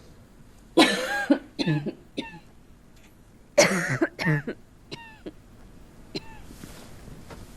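A person coughing in two fits about three seconds apart, each a loud cough followed by a few smaller ones: the persistent cough of consumption (pulmonary tuberculosis).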